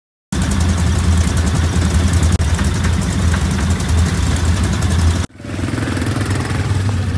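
ATV engines running, starting abruptly a moment in; about five seconds in the sound cuts and resumes with a slightly different engine sound.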